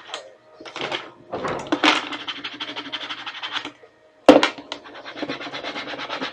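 A plastic squeegee scraping fast over transfer tape on a plastic pail, burnishing a vinyl decal down. The scratching comes in two spells, with a sharp knock about four seconds in.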